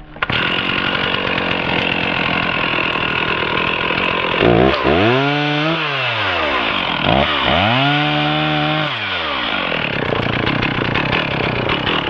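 Stihl 460 Magnum two-stroke chainsaw running hard, its engine pitch swept up and back down twice, about halfway through and again a few seconds later.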